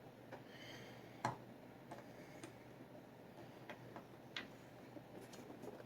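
Faint, scattered clicks and taps from handling a boxed action figure, a second or so apart, the loudest about a second in.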